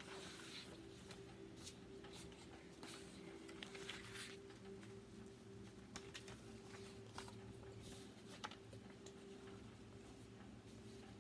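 Near silence: a faint steady low hum with scattered soft rustles and small clicks.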